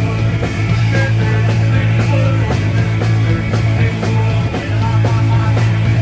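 Punk rock band playing live at full volume: distorted electric guitars and a heavy bass line over a steady drumbeat.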